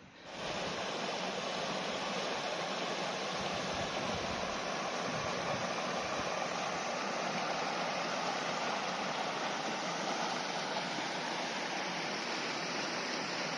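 Shallow rocky mountain stream rushing and babbling over stones as a steady, even noise that comes in suddenly just after the start.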